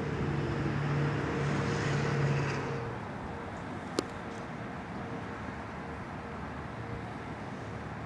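Distant Whelen electronic outdoor warning siren holding a steady, level Alert tone that wavers in and out, over traffic and wind noise. A vehicle passes in the first three seconds and fades, and there is a single sharp click about four seconds in.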